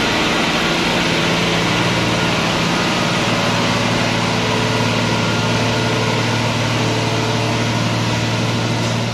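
A truck's diesel engine running steadily at an even pitch.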